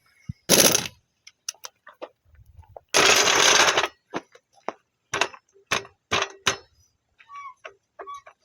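Hand tools clicking and clinking during car suspension work, with two loud bursts of hissing noise, the longer lasting about a second, followed by a run of sharp clicks and clinks.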